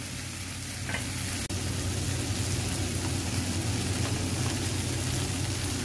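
Onion, tomato and green chilli masala sizzling steadily in a nonstick frying pan, with a steady low hum underneath.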